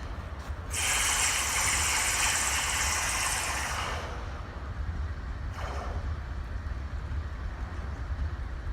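Diesel freight locomotives rumbling steadily, with a loud hiss of released air starting suddenly about a second in and lasting some three seconds, then a brief second puff of air near the middle.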